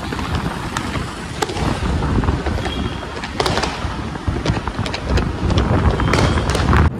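Wind buffeting the microphone over a low vehicle and road rumble while moving along a street, with scattered sharp cracks.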